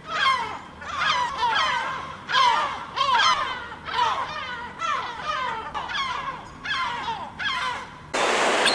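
A flock of gulls calling, a run of short, harsh cries that bend in pitch, one after another and sometimes overlapping. About eight seconds in, a loud steady rushing noise starts abruptly.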